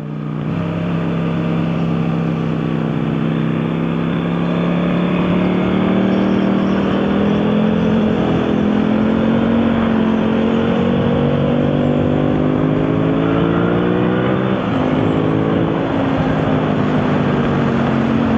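Motorcycle engine running under way with a rushing noise behind it. Its pitch climbs slowly for several seconds as the bike accelerates, drops briefly about fifteen seconds in, then holds steady.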